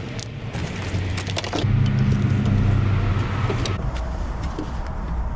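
Knocks, clicks and rattles of a deep-rim bicycle wheel being handled and stowed in a small hatchback's open boot. A low steady hum comes in for about two seconds in the middle.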